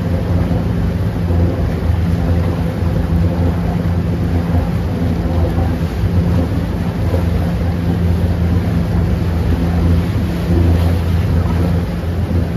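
Motorboat engine running steadily under way, a low drone, over the rushing churn of the propeller wash.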